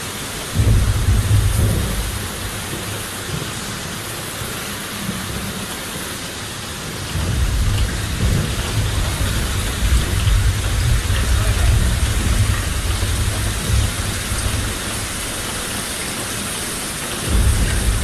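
Heavy steady rain with thunder rumbling: a deep rumble starts suddenly about half a second in and dies away within two seconds, a longer rolling one runs from about seven to fifteen seconds, and another begins near the end.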